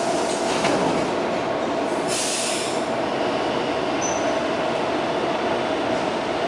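Taipei Metro C321 train running: steady rolling and wheel noise with a steady hum underneath, and a short hissing rush about two seconds in.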